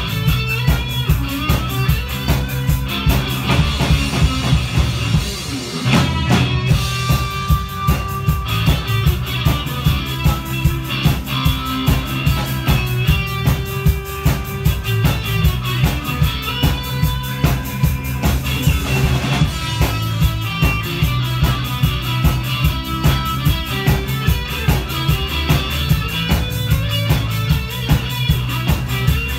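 Live rock band playing: electric guitar over a drum kit with a steady beat, with a short break about six seconds in.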